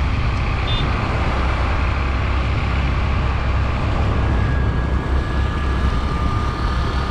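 Wind rushing over the microphone of a moving motorbike, with the bike's engine and road noise underneath. A faint steady whine comes in about four seconds in.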